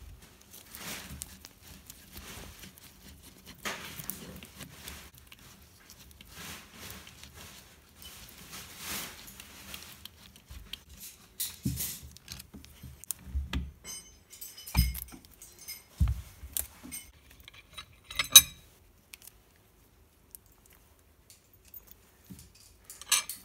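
Metal parts of a 1947 South Bend lathe saddle and a screwdriver being worked by hand: soft scraping and rubbing at first, then a string of metal clinks and knocks as the cast-iron pieces are lifted and set down, the loudest a sharp clink about two-thirds of the way through.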